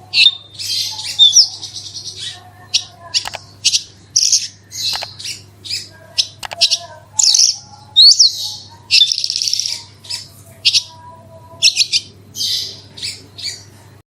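Javan bush lark (branjangan) singing in full, rapid song: a run of short buzzy trills and chirps, some with quick rising and falling sweeps, broken by brief gaps.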